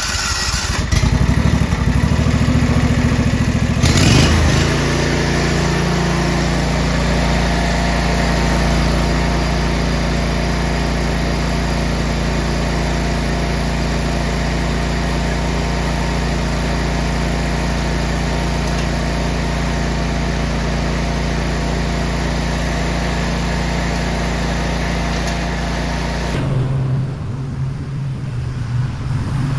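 Briggs & Stratton Vanguard 24 hp V-twin on a Bradley 48SC mower starting up and running steadily at high throttle, being tested for full RPM after a new throttle cable; the engine note steps up about four seconds in. Near the end the sound changes abruptly to a lower, duller hum.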